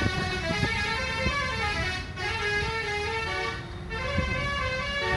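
Bus 'telolet' multi-tone horn playing a melody, its notes stepping up and down one after another, over the rumble of road traffic.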